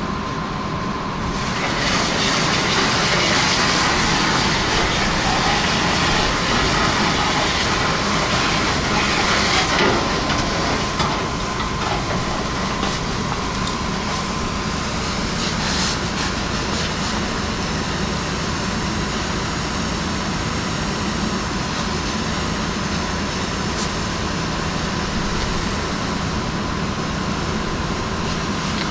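A fire hose nozzle spraying water into a burning steel dumpster, a steady hiss of water that is louder in the first ten seconds. Under it runs the constant drone of the fire engine's pump.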